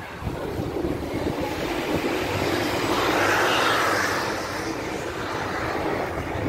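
City street noise: a steady low rumble with a wash of noise that swells and fades again about halfway through.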